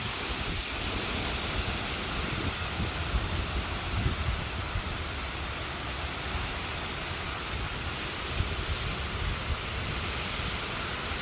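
Storm wind and rain from a hurricane, a steady rushing hiss, with gusts buffeting the microphone in a low, uneven rumble.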